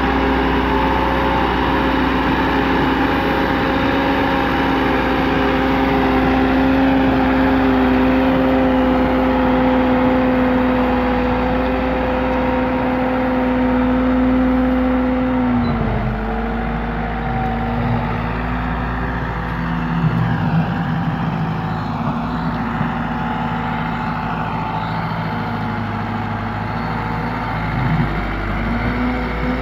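Massey Ferguson tractor's diesel engine running under load as it pulls a trailer on a steep dirt track, holding a steady pitch. About halfway through the revs drop sharply, and the engine then runs at a lower, less steady pitch.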